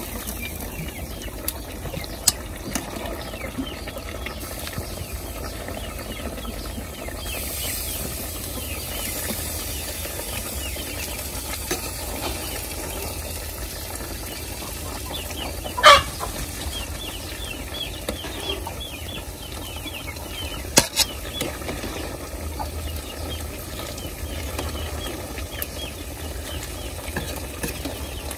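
Muscovy duck offal simmering in broth in a wok: a steady low bubbling and sizzle with fine crackles. A brief, loud rising squawk comes about halfway through.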